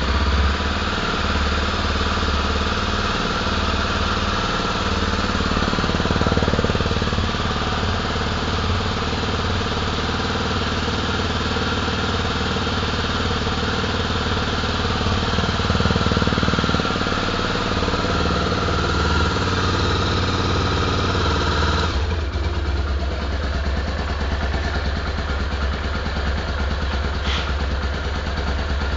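Honda XR250 Tornado's single-cylinder four-stroke engine idling steadily, just after being started. About 22 seconds in, the higher-pitched part of the sound drops away, leaving a plainer low idle.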